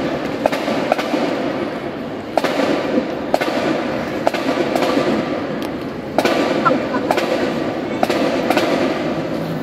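A school marching band's drumline and cymbals playing in a large echoing sports hall: sharp drum hits at an uneven beat over a dense wash of cymbal noise, which swells suddenly about two and a half and again about six seconds in.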